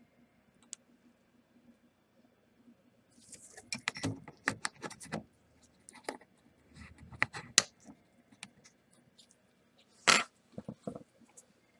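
Scattered clicks, clacks and rustling of small tools and objects being handled and set down on a workbench, with one sharp clack about ten seconds in.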